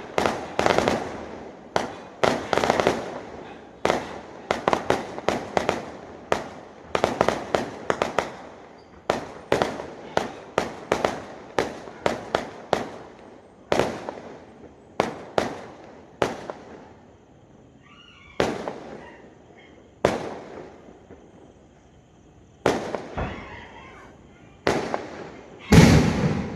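Fireworks going off: rapid volleys of sharp bangs, thinning after about twelve seconds to single bangs a second or two apart, with the loudest bang near the end.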